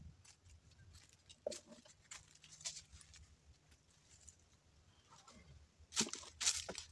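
Footsteps and shuffling on dry leaf litter, with scattered crackles and a few louder rustling scrapes near the end as the man handles a wooden beam.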